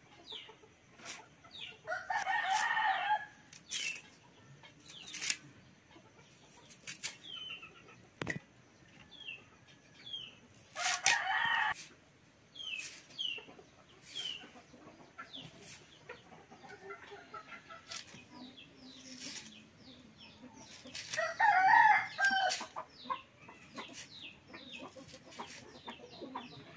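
A rooster crowing three times, several seconds apart, with chickens clucking and chirping in between. Light clicks of onions being sliced on a boti blade run underneath.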